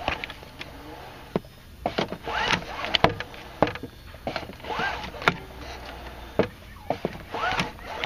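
Re-tensioned seatbelt retractor in a 1997 Mercedes W202 C-class, the belt pulled out and let go about three times: each time the spool whirs the webbing back in with a brief rising and falling whine, between sharp clicks. The retractor spring, now wound the right way, pulls the belt in firmly.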